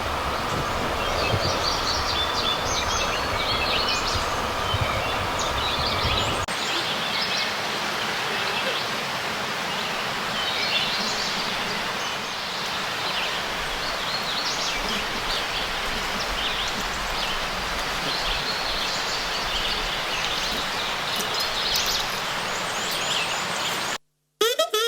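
Birds chirping and calling over a steady outdoor background hiss, with a low rumble under it that stops about six seconds in.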